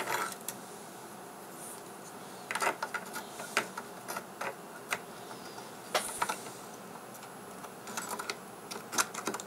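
Irregular small clicks, taps and rustles of fingers handling wires and a small plastic plug-in connector inside an opened audio interface, in scattered clusters about two and a half, six and eight to nine seconds in, over a faint steady background hiss.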